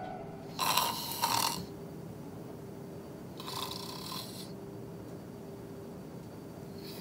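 A man snoring with his mouth open: two long, rasping snores, each about a second, roughly three seconds apart, over a faint steady hum.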